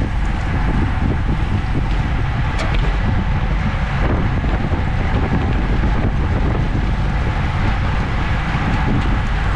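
Wind rushing over the microphone of a bike-mounted camera on a road bike moving at about 30 mph: a steady, loud rumble.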